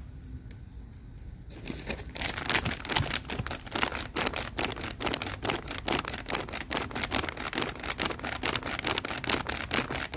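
Charcoal grill being fanned by hand: rapid, rhythmic flapping and rustling strokes that start suddenly about a second and a half in, fanning the coals under lamb skewers to raise heat and smoke.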